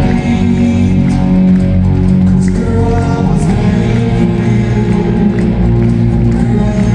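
Music with a singing voice, played loud and steady.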